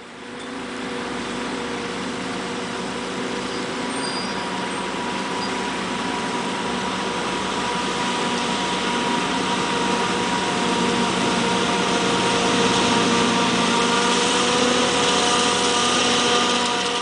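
Large farm machine's diesel engine running steadily with a whining hum, slowly growing louder.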